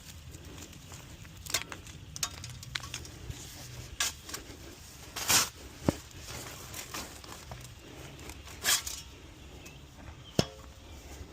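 Shovel digging a new post hole: several short scraping strokes into soil and a few sharp knocks of the blade, spaced irregularly.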